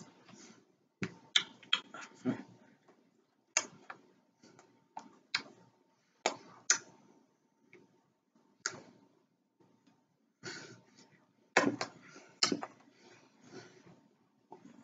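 Hands tapping, slapping and brushing against each other and the body during sign language: irregular sharp taps and short rustles, a few of them loud, with a faint thin steady tone in the background through the middle.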